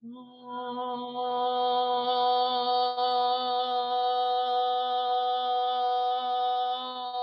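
A woman's voice sustaining one long, steady sung tone on a single pitch, rich in overtones: vocal toning in a voice-work exercise, the voice sent down into the body.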